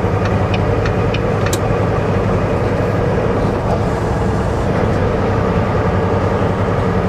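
Steady engine drone and road noise of a semi truck cruising at highway speed. Light ticking about four times a second stops about a second in, and a single sharp click follows shortly after.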